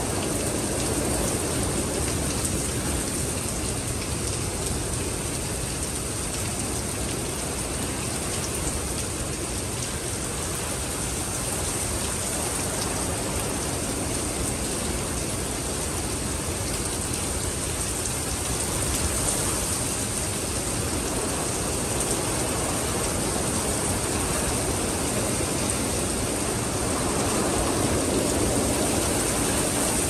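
Winter rainstorm: rain falls steadily as a continuous hiss, growing a little louder near the end.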